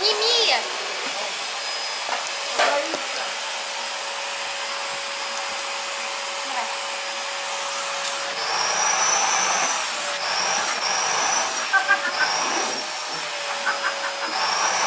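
Vacuum cleaner running with a steady hum and a high whine. From about eight seconds in, its pitch dips and recovers several times.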